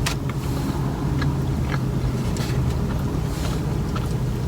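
Close-up chewing and biting of food, with scattered small crunchy clicks, over the steady low hum of an idling vehicle engine.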